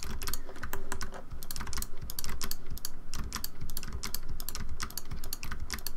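Computer keyboard keys clicking in quick, irregular succession as shortcuts are typed.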